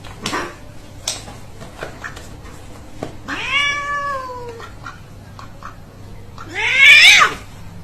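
Domestic cat meowing twice: a long meow about three seconds in that rises and then falls in pitch, and a shorter, louder one near the end. A couple of light knocks come before the first meow.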